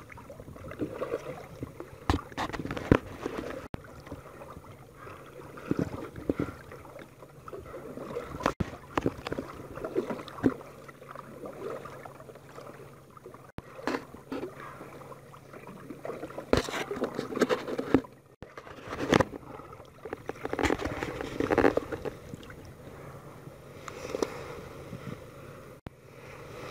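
Water lapping and sloshing against a plastic kayak hull, with irregular sharp knocks and small splashes.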